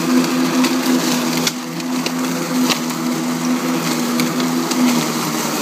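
Greenworks Twin Force 40 V cordless mower running at a steady hum, its two battery-driven blades cutting and vacuuming up a thick layer of fallen leaves into the bag, with a faint crackle of debris over the motor tone.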